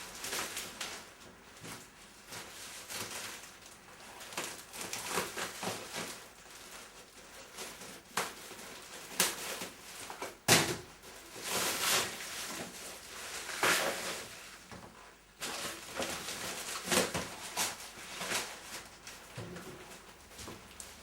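Packaging wrap being pulled and torn off a long parcel: irregular crinkling and rustling with scattered sharp knocks, the loudest about ten and a half seconds in.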